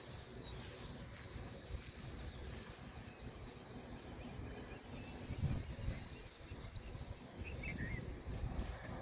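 Outdoor ambience picked up by a handheld phone microphone: an uneven low rumble of wind and handling, with a few faint bird chirps about seven and a half seconds in.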